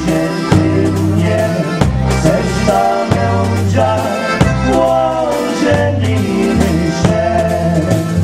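Live dance band playing a waltz, a man singing into a microphone over the band and a drum kit.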